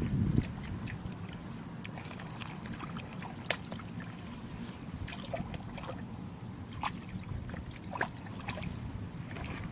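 Hands groping and working in shallow muddy water: small squelches and splashes, a few sharper ones scattered through, over a steady low rumble.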